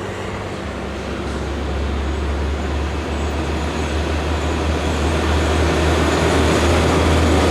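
A heavy vehicle's diesel engine running with a low, steady note that grows gradually louder as it approaches, over road and tyre noise.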